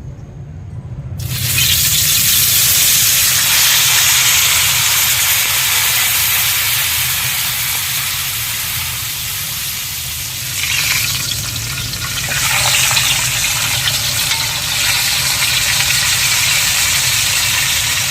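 Parrotfish frying in hot oil. The sizzle starts suddenly about a second in, as the fish goes into the pan, then carries on as a loud, steady crackling hiss. It eases briefly about two-thirds of the way through. A low, steady rumble runs underneath.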